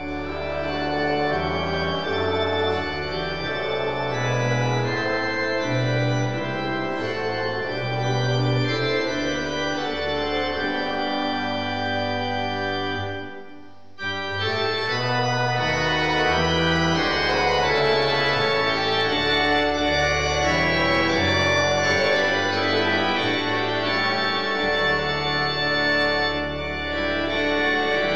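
Church organ playing a hymn tune in slow, held chords, with a brief break about halfway through before it carries on.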